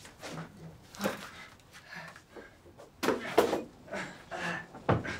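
A man's wordless vocal sounds in short broken bursts, gasps and sobbing or pained breaths, loudest about three seconds in, with a brief sharp sound just before the end.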